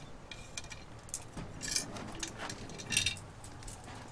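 A handful of light metallic clinks and taps, irregularly spaced, some with a brief high ring, the loudest about three seconds in: small metal parts being handled.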